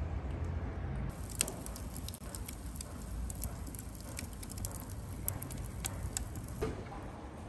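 Split firewood burning in a stove's firebox, crackling with many irregular sharp snaps and pops that begin about a second in, after a low rumble.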